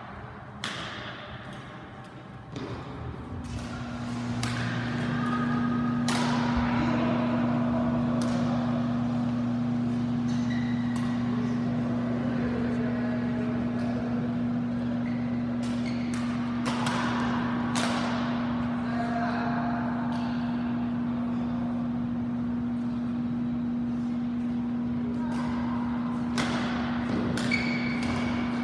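Badminton rackets striking a shuttlecock in rallies: sharp smacks at irregular intervals, several in quick succession at times. Under them a steady low hum comes in a few seconds in and holds.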